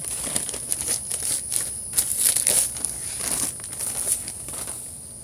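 Clear plastic zip-top bag crinkling in quick, irregular crackles as it is handled.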